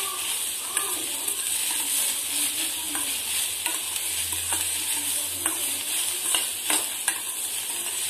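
Chopped capsicum and onion sizzling in a steel kadai as they are stirred and fried, with a steady hiss and sharp clicks and scrapes against the pan from time to time.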